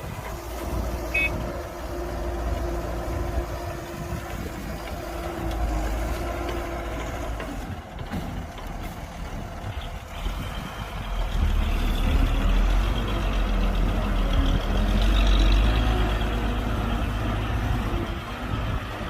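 Heavy diesel earthmoving machinery (bulldozer and dump trucks) running, with a short high beep about a second in. The engine drone grows louder about eleven seconds in, as the machine works harder or comes closer.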